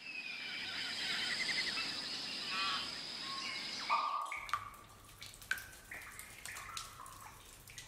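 Outdoor ambience with birds chirping over a steady hiss. After about four seconds it gives way to water dripping in a cave, with separate drips plinking at irregular intervals.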